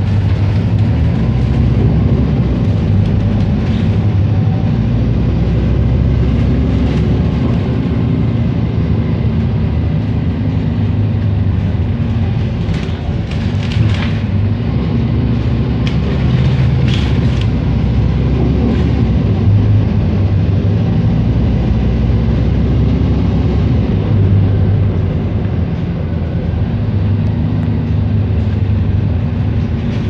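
Cabin noise inside a moving road vehicle: a steady low engine and road rumble, with a few brief rattles about halfway through.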